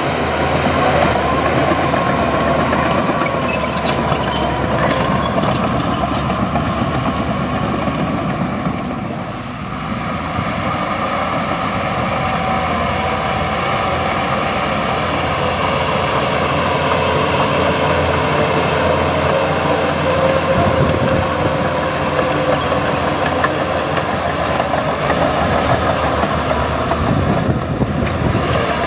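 Heavy earthmoving machinery running: steady, loud diesel engine noise with some metallic clatter. The noise dips briefly about nine seconds in.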